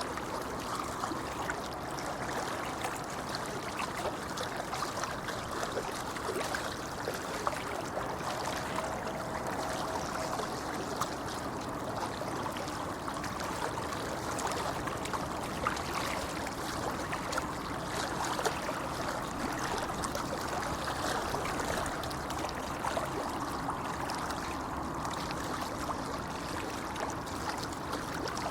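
Shallow river babbling steadily over stones.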